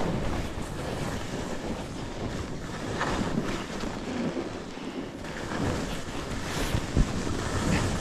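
Wind buffeting the microphone during a downhill ski run, mixed with the rushing of skis over snow, with a single short thump near the end.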